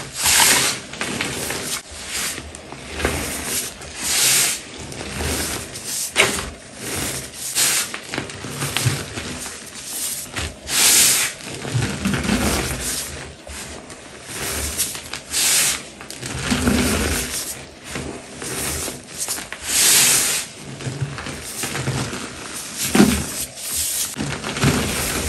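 Hands squeezing and crumbling reformed gym chalk: a run of soft crunches and powdery rustling, with a louder crunch every second or two.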